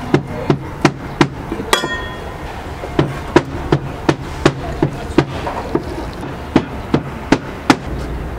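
Steady, sharp knocking blows, about three a second, with brief pauses. A single ringing metal clink sounds a little under two seconds in.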